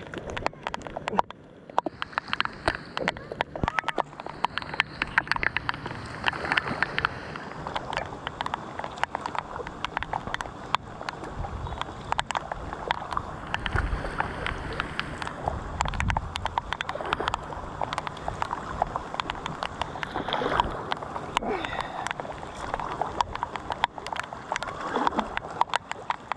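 Kayak paddle strokes splashing through shallow, fast-flowing floodwater, with many sharp raindrop ticks on the camera all through.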